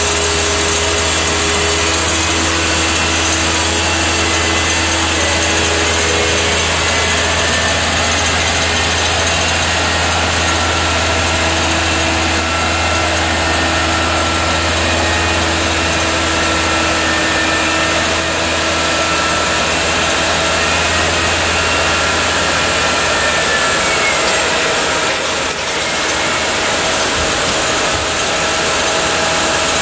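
Manitowoc 14000 crawler crane's diesel engine running steadily, with several whining tones above the engine hum that shift in pitch about two-thirds of the way through as the grapple is worked.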